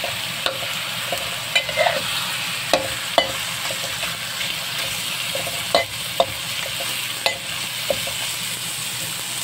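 Ground pork sizzling in a wok as its own water cooks off, with short metallic clicks and scrapes of a steel spatula against the wok at irregular moments as the meat is stirred and pressed.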